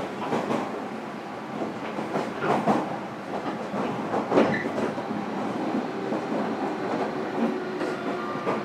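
JR Kyushu 305 series electric multiple unit heard from inside a motor car, running along with a steady rumble. The wheels clack over rail joints a few times, loudest about four seconds in.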